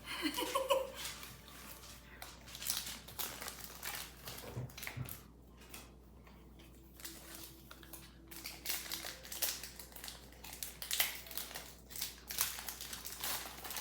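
Crinkling of Pokémon card pack packaging and rustling of cards being handled, in irregular bursts that go quieter for a few seconds midway.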